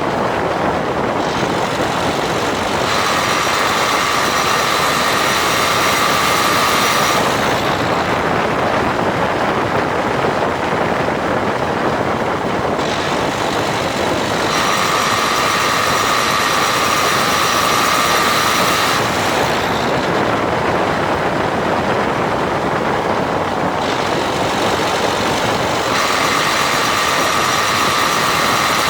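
Road and engine noise inside a 2016 Dacia Duster dCi 4WD under way, with a high-pitched grinding noise that comes in three times, each lasting about four seconds, as the car accelerates in 5th or 6th gear from about 1500 to 1800 rpm. Two dealer visits have not cured it, and the owner suspects a faulty drive shaft.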